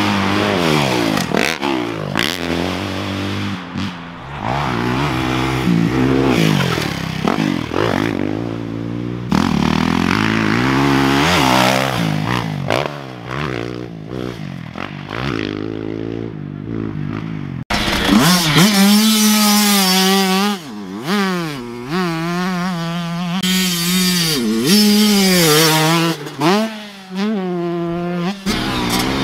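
Motocross dirt bike engines revving and shifting on a track, several bikes at once in the first half. About two-thirds of the way through there is a sudden change to one close bike whose engine pitch rises and falls repeatedly with throttle and gear changes.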